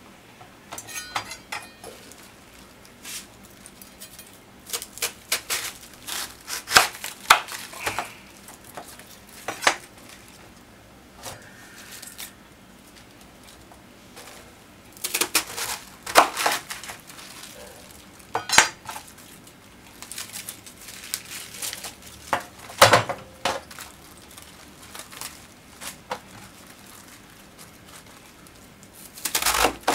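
Kitchen prep sounds at a napa cabbage: irregular knocks and clatters of a knife and hands on a plastic cutting board and of cabbage pieces set into a stainless-steel tray, with a cluster of sharp knocks near the end.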